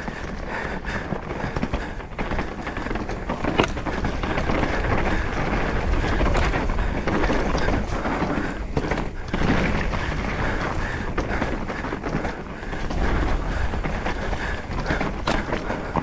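Trek Slash full-suspension mountain bike rolling over a rocky trail: a continuous clatter of tyres on stones and the bike rattling, with frequent sharp knocks and rumbling wind noise on the microphone.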